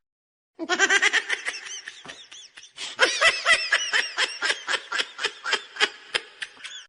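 Laughter in a long run of quick, high-pitched pulses, starting about half a second in.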